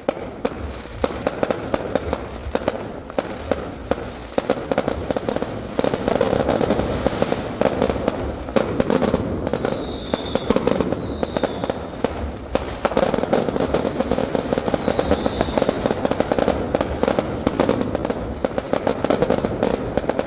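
Fireworks display: aerial shells bursting one after another with dense crackling, getting louder and busier about six seconds in. A few short, falling high whistles are heard around the middle.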